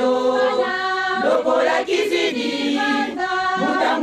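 Women's choir singing a church song a cappella, several voices holding notes together in harmony.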